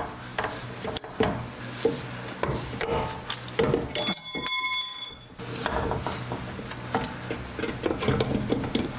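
Scattered knocks and clinks of metal suspension parts being handled as a heavy strut assembly is worked into place. About four seconds in, a high steady ringing tone sounds for about a second and a half.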